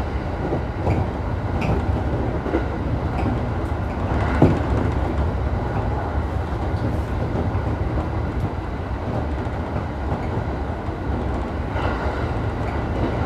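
Commuter train running, heard from inside the passenger car: a steady rumble with occasional clicks of the wheels over rail joints, and one sharper knock about four seconds in.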